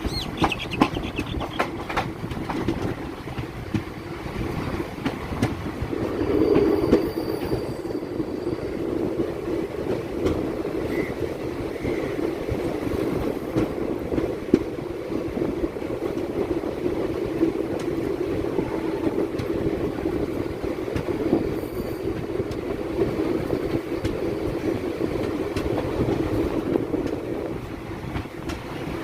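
Chennai MRTS electric suburban train running on its rails: a steady low hum with wheel-on-rail clatter. Sharp clicks come in the first couple of seconds, and the sound swells briefly about six seconds in.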